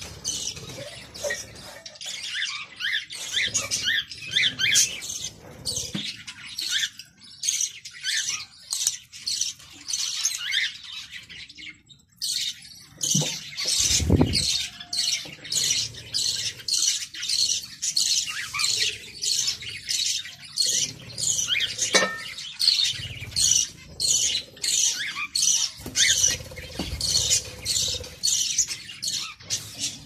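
Budgerigar chirping and chattering in quick, repeated short calls, with a brief pause about twelve seconds in and a low thump a couple of seconds later.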